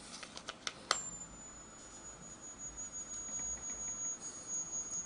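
A few light clicks, then about a second in another click as the homemade static grass applicator is switched on. Its high-voltage circuit, taken from an electric fly swatter, gives a steady high-pitched whine that dips slightly in pitch at first and then holds.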